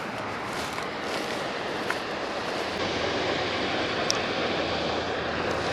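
Steady rush of flowing creek water, with a couple of faint short ticks.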